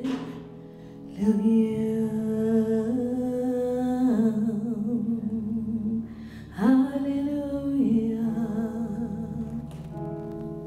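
Slow worship music: a woman sings long, held notes over a soft sustained backing, changing pitch every few seconds and getting quieter near the end.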